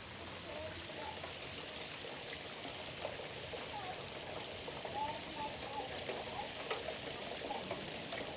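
Rainwater from a gutter outlet pouring and trickling down a bundle of five galvanized rain chains in a storm, a steady running-water sound with small splashes and drips.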